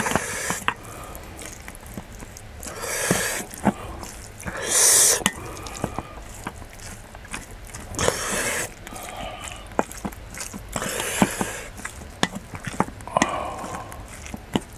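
A wooden spoon mixing rice and side dishes in a stainless steel bowl. The spoon knocks lightly and often on the metal, with short spells of scraping every couple of seconds.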